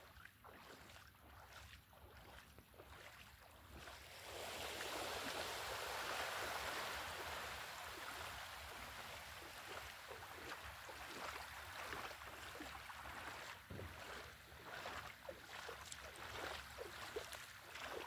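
Feet splashing as a person wades through shallow sea water, step after step, faint at first and closer near the end. A rushing hiss swells for a few seconds in the middle.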